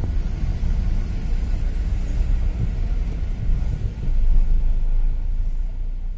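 Steady low rumble of a car's engine and tyres heard from inside the cabin as it moves slowly in stop-and-go traffic, swelling a little about four seconds in.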